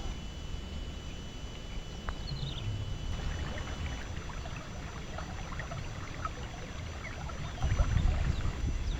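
Wind buffeting the microphone in gusts, as a low rumble that swells about eight seconds in. Faint short high chirps are scattered over it from the middle on, and a thin steady high tone lasts for the first few seconds.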